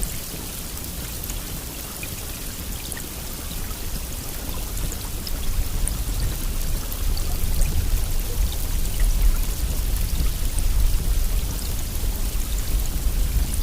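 Steady heavy rain: a continuous hiss with scattered fine drop ticks and a deep low rumble underneath. It grows a little louder partway through.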